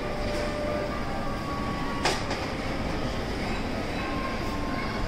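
Steady background din of a busy shopping mall at a food counter, with one sharp clack about two seconds in.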